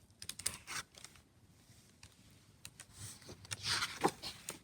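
Soft paper handling as the pages of a picture book are turned: a few light rustles and clicks, then a longer swish of a page about three and a half seconds in.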